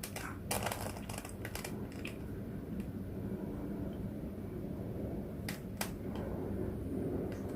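A 3x3 Rubik's cube being turned by hand, its plastic layers clicking as they rotate: a quick run of clicks in the first two seconds, then a few single clicks later on, over a low steady background hum.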